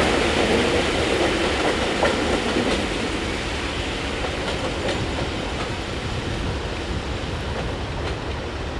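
Passenger coaches of a departing train rolling away over the track: a steady rumble of wheels on rails with a few clicks, slowly fading as the train draws away.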